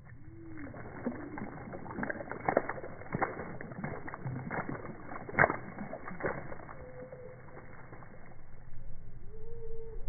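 Noisy miner bathing in a water-filled tub, slowed down: a run of splashes and water slaps for several seconds, the loudest about five seconds in. A few drawn-out, low bird calls come near the start and again near the end.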